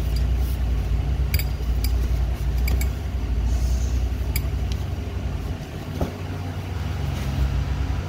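A steady low hum, with a few light metallic clicks and clinks of a ratchet, extension and socket being handled, spaced a second or so apart.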